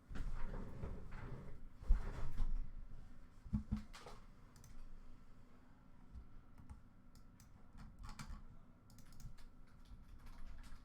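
Typing on a computer keyboard: irregular light key clicks, after a few louder knocks and rustles of handling in the first seconds, the loudest thump about two seconds in.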